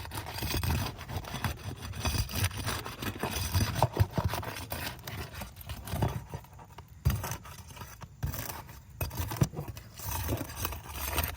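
Flat shingle bar scraping and prying under an asphalt shingle tab in short, irregular strokes, with scattered clicks, breaking the tab loose from its sealant strip.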